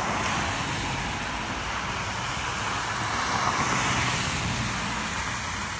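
Steady rushing noise of distant road traffic, swelling a little about three and a half seconds in.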